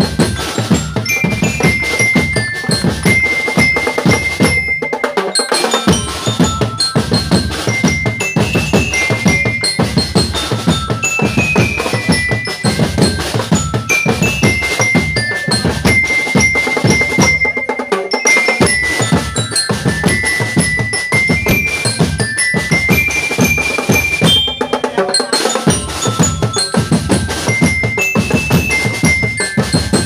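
Drum and lyre band playing a tune: bell lyres carry the melody over a dense beat of snare and bass drums. The bass drums drop out briefly three times.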